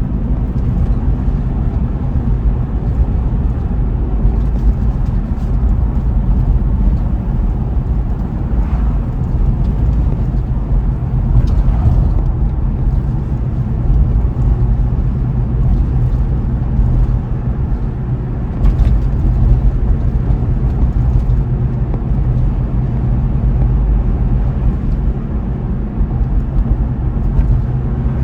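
A car driving along a road: a steady low rumble of tyres and engine, with a few faint clicks now and then.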